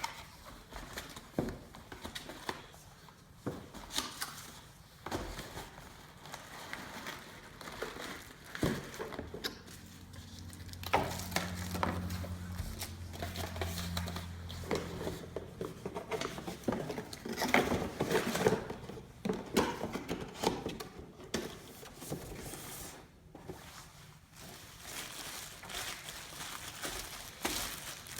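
A cardboard box and its plastic packaging being opened and handled: crinkling, tearing and scattered knocks and scrapes. A low steady hum joins for several seconds in the middle.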